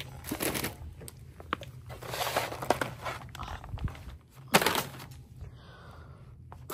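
Shrink-wrapped crayon and coloring packs crinkling and rustling as they are handled, with a sharper knock about four and a half seconds in.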